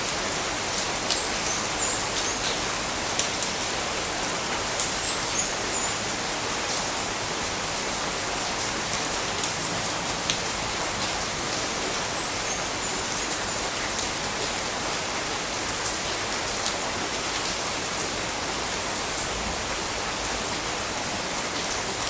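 Steady tropical rain falling, an even hiss with scattered sharp drips, and a few short high chirps now and then.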